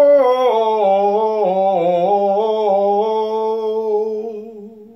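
A man sings a slow vocal run on the syllable "so", a single held voice stepping down through several notes and back up, each note sounded distinctly; it fades out near the end. It is a run broken down slowly for practice.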